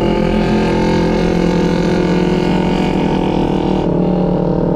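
A 250 cc sport motorcycle engine running steadily at cruising revs, heard from the rider's own bike, with a rushing hiss over it that cuts off a little before the end.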